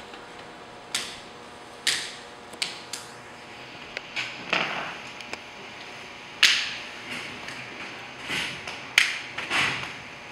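Martial arts uniforms snapping as punches and blocks of a form are thrown, with bare feet slapping the mat: about a dozen sharp, irregular cracks, the loudest about six seconds in.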